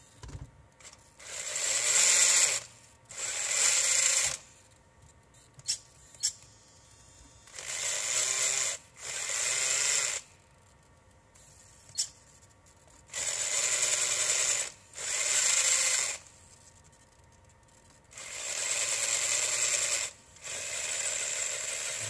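RC crawler's brushed 540 motor driving the two-speed transmission and axles in short throttle bursts, wheels spinning free, giving a loud whirring gear whine. It comes in four pairs of bursts, with a few short clicks between them. The owner thinks the gears sound too loud and not right, though the gear mesh looks good.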